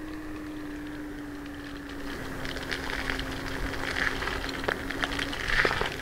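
Kugoo Kirin G3 electric scooter's 1200 W motor humming at a steady pitch under load on a steep climb, the pitch dropping slightly about two seconds in, over rattling and road noise that grow louder in the second half.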